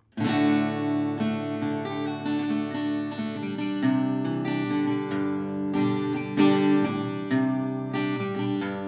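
Artavox SF steel-string acoustic guitar, Engelmann spruce top with black walnut back and sides, strummed with a flat pick through a few chords. The chords ring out between repeated strokes.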